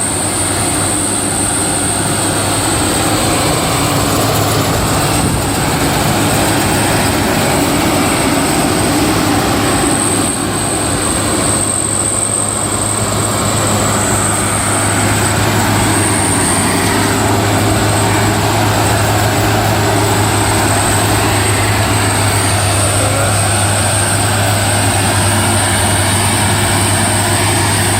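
Rice combine harvester running steadily under load, a continuous machine noise with a low engine hum and a constant high-pitched whine.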